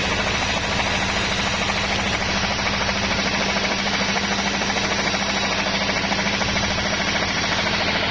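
Sawmill machinery running steadily: a continuous engine hum with a dense, even noise above it.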